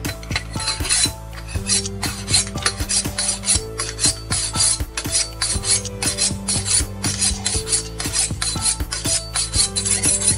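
Kitchen knife blade stroked rapidly along a steel honing rod, edge honing: a rasping scrape of steel on steel, several strokes a second.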